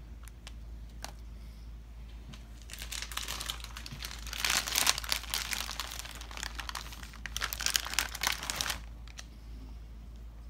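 Cheese-slice packaging crinkling as slices are pulled out, a dense crackle that starts about three seconds in, peaks a couple of seconds later and stops near the end.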